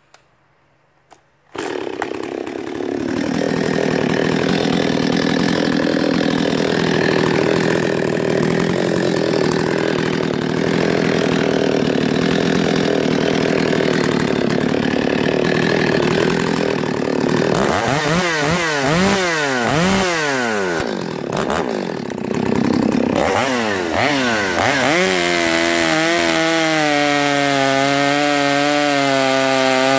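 Stihl 025 two-stroke chainsaw starting up after two short clicks and running hard with a dense, noisy sound for about fifteen seconds. Then it is revved up and down several times, and near the end it settles into a steady, even tone.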